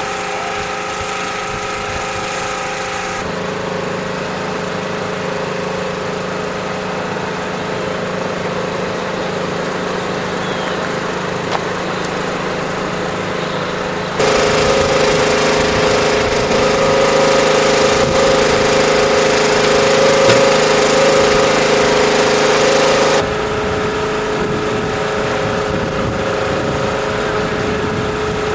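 An engine running steadily at idle, with a rough mechanical rattle. The sound changes abruptly about 3 seconds in, gets louder about 14 seconds in, and drops back about 23 seconds in.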